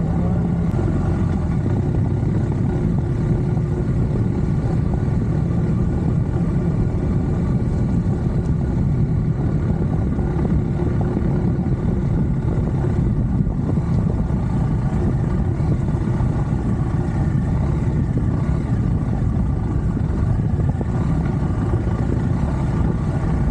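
Adventure motorcycle running steadily while being ridden, its engine and road noise even in level.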